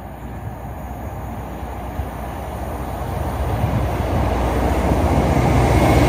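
A train approaching along the line, its rumble and rail noise growing steadily louder.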